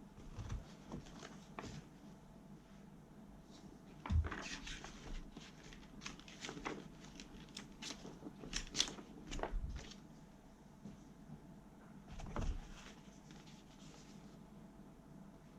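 Handling sounds from unpacking an airsoft rifle from its box: scattered knocks, clicks and rustles, the loudest a thump about four seconds in.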